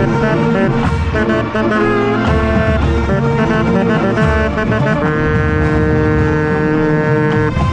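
Marching band playing a brass-heavy tune, the tenor saxophone close and loud over brass and pounding low drums; held chords change every second or so, with a long sustained chord near the end.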